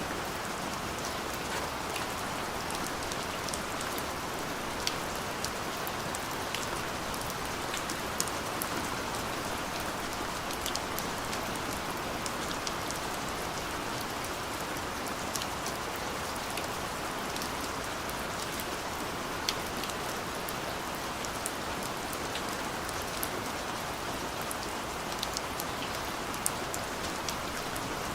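Steady rain falling: an even hiss with scattered sharper drop clicks throughout.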